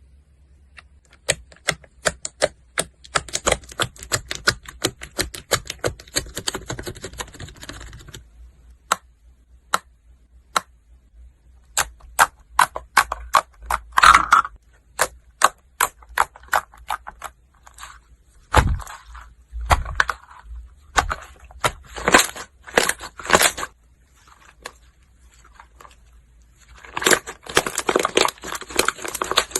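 Slime being pressed, squeezed and poked, crackling and popping with sharp clicks as air pockets burst. The clicks come in dense runs near the start and the end, more sparsely in between, with a couple of deeper thumps about two-thirds of the way through.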